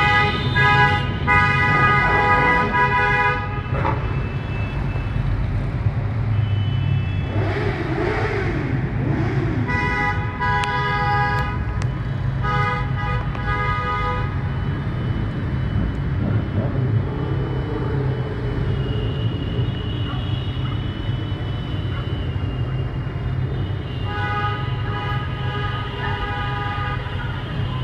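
Car horns of a wedding convoy honking in long held blasts over a steady low rumble of passing engines. The horns sound at the start, again from about ten to fourteen seconds in, and near the end.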